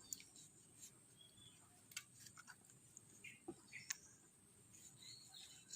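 Near silence, with faint scattered clicks and light taps from handling peeled aloe vera leaves.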